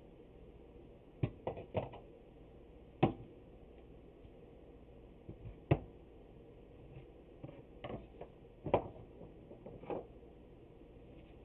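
Irregular sharp knocks and clicks of glued wooden boards and clamps being handled and adjusted. About nine separate knocks, loudest about 3, 6 and 9 seconds in.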